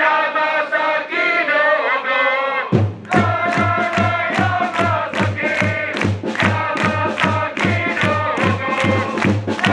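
Football supporters singing a chant together in a crowd; about three seconds in a drum joins with a steady beat of about three strokes a second.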